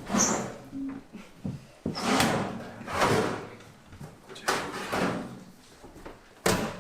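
A series of knocks and scraping noises, one every second or so, with a sharper knock near the end.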